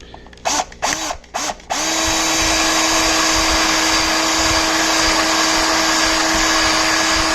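Small electric drill gives a few short trigger bursts, then runs steadily at constant speed from about two seconds in. It is drilling at a rivet on a diecast toy car with a bit that is not cutting well.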